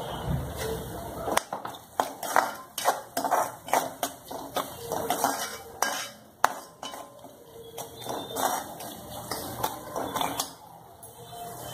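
Metal spoon scraping and clinking against a frying pan as chopped onions are stirred: irregular knocks and scrapes, several a second at times.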